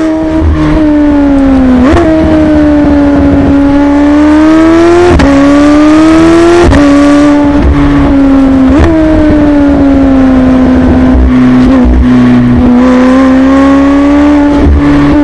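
McLaren 750S twin-turbocharged V8 exhaust under way, a loud steady engine note whose pitch rises and falls. The note is broken by quick jumps at gear changes about two, five, seven and nine seconds in.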